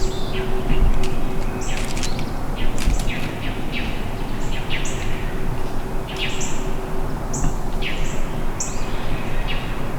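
Songbirds chirping and calling: many short, high chirps and quick falling calls in irregular succession over a steady background hiss.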